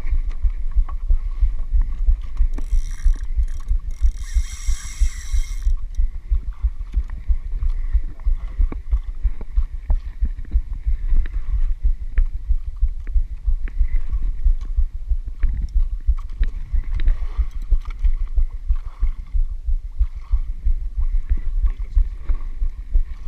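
Small fishing boat's engine running with a steady low throbbing. A brief high-pitched buzz sounds over it from about two and a half seconds in and stops near the six-second mark.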